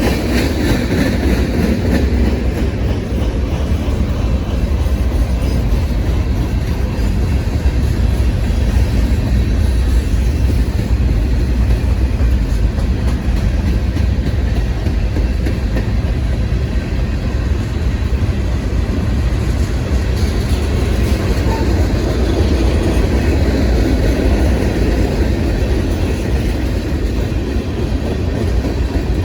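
Freight cars of a manifest train rolling past steadily, their steel wheels rumbling on the rails in a continuous low rumble.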